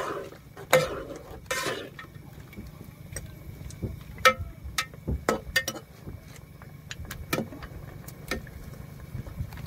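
A steel ladle stirring chicken karahi in an aluminium pot, clinking and scraping against the metal at irregular moments, over a steady low rumble.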